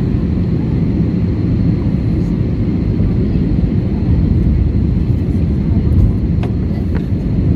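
Steady low roar of cabin noise inside an Airbus A320 on approach: engine and airflow noise heard through the fuselage. A couple of faint clicks near the end.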